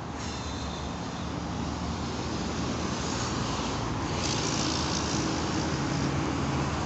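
Road traffic going past on a busy highway: a steady rush of tyres and engine hum that grows louder over the few seconds as a vehicle draws near.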